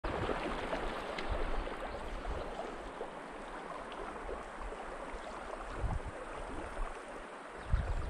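Shallow mountain stream flowing over a cobble bed, a steady rushing and rippling of water, with a couple of low thumps near the end.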